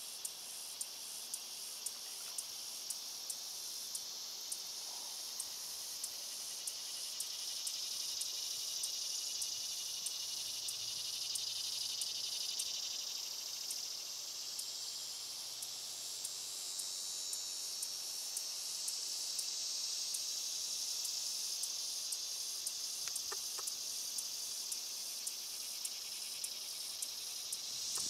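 Steady, high-pitched insect chorus with a buzzing shimmer, and a light, regular tick repeating about every three-quarters of a second.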